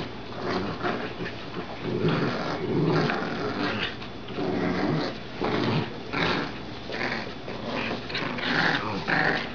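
Dachshund and golden retriever puppies growling in play as they wrestle over a glove, in irregular bursts, with a few higher yips near the end.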